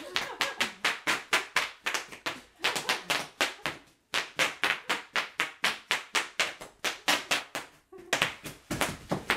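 Bubble wrap popping under a small child's bare feet as he stamps and hops on it: a rapid run of sharp pops, several a second, with two brief pauses about four and eight seconds in.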